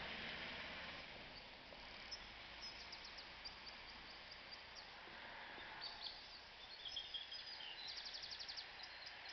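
Faint steady outdoor background noise with small birds chirping, ending in a fast trill of evenly repeated notes near the end.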